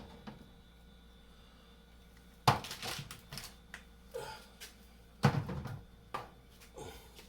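Groceries being unpacked from a box and set down: two sharp thunks, about two and a half and five seconds in, with lighter knocks and handling noise between.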